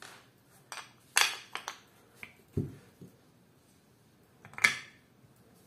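Wooden grip panels of a Colt Trooper MK III revolver being handled and fitted against its steel frame: irregular light clicks and knocks, a dull thump about halfway, and the sharpest click about four and a half seconds in.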